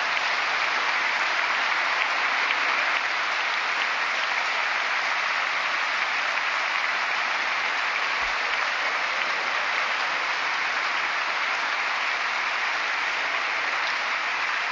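Large audience applauding steadily, a dense even clapping that holds at the same level throughout.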